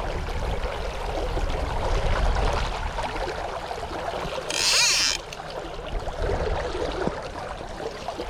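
River current running, with wind buffeting the microphone as a low rumble through the first half. About halfway through comes a short, loud hissing burst.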